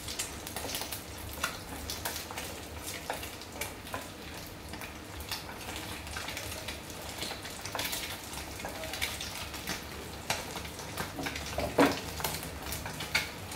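A duck egg frying in oil in a frying pan, sizzling steadily, with scrapes and taps of a wooden utensil against the pan now and then and one louder knock about twelve seconds in.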